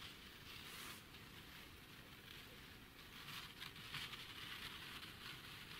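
Near silence: a faint steady hiss, with a few light rustles and ticks in the second half.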